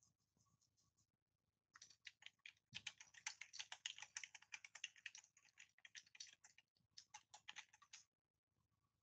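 Fast typing on a computer keyboard: a dense run of key clicks starts about two seconds in and goes on until near the end, broken by a brief pause around seven seconds.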